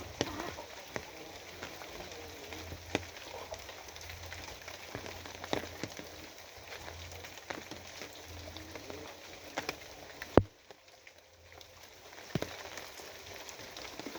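Steady rain falling, with scattered louder drips hitting a surface. There is a sharp louder tap about ten seconds in, then the rain briefly drops quieter before picking up again.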